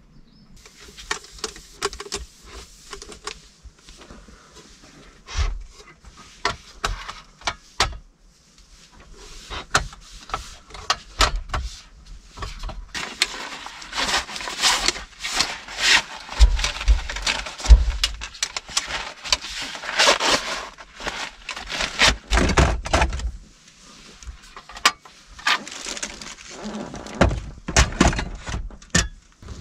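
Camp gear being handled and packed inside a car: a small metal folding table slid into its fabric storage bag, with stretches of rustling and a string of knocks and thunks.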